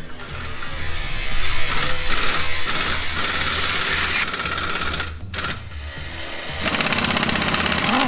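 Pneumatic impact wrench hammering on the wheel nuts of a 1950s Chevy truck's dual rear wheels, undoing them to take the wheels off. It runs in two long bursts of rapid rattling, with a short break about five seconds in.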